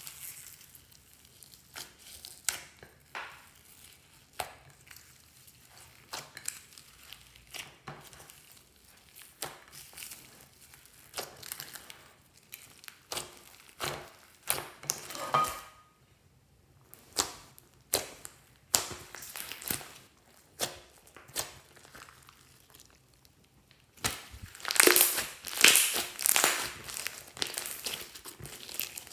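Slime mixed with foam beads being kneaded and squeezed by hand, giving repeated sticky pops, clicks and crackles. The crackling becomes dense and loudest near the end.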